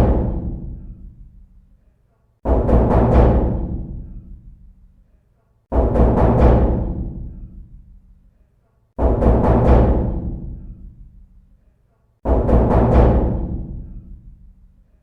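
Knocking on a door: a quick run of several knocks, repeated four times about every three seconds, each run ringing on with a long echoing decay.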